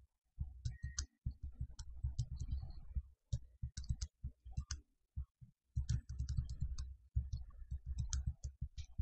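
Computer mouse clicking rapidly and irregularly in flurries with short pauses, each click carrying a dull knock on the desk, as parts of a drawing are selected and dragged.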